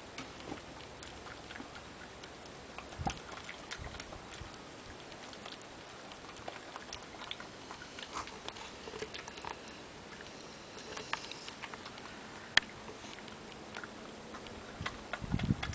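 European badger eating peanut butter, chewing and smacking with scattered small wet clicks. One sharp click about three-quarters of the way through is the loudest sound, and there are a couple of low thumps, one about three seconds in and one near the end.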